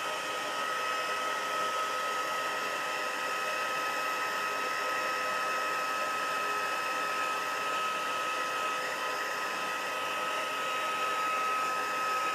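Embossing heat tool running steadily, blowing hot air to melt and set embossing powder on cardstock. It makes an even rush of air with a thin steady high whine over it.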